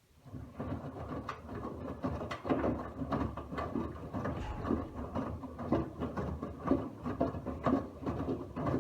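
Miele W1 front-loading washing machine's drum turning during a wash, laundry and water tumbling with a slosh about once a second over a low motor rumble. The drum starts right away and stops abruptly near the end, a single turning phase of the wash rhythm.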